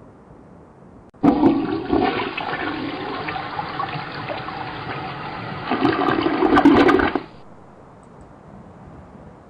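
Toilet flushing: a sudden rush of water starts about a second in and runs for about six seconds. It swells louder near the end, then cuts off abruptly.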